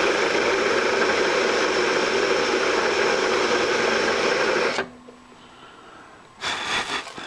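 Milling machine cutting metal with a steady, loud machining noise that stops suddenly about five seconds in. Near the end comes a short run of rasping strokes, like a file or deburring tool worked over the fresh edge.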